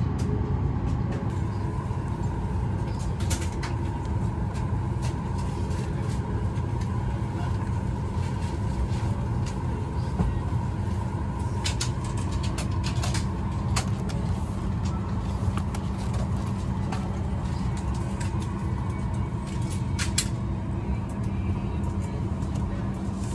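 Steady cabin drone of a parked Boeing 737 MAX 8, its air-conditioning blowing through the cabin, with a faint steady tone. A few sharp clicks and taps from hands on the seat fittings and the drinks table.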